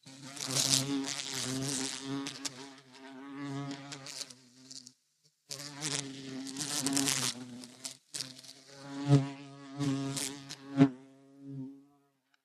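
Bumblebee buzzing in flight, a low steady hum that swells and fades as it passes close, in three stretches broken by brief silences about five and eight seconds in. It stops shortly before the end.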